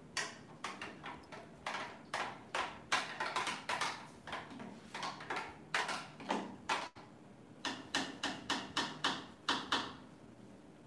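Metal spoon knocking and clinking repeatedly against a plastic blender jar of smoothie, several quick knocks a second. There is a short pause about seven seconds in, then a faster run of clinks with a slight ring.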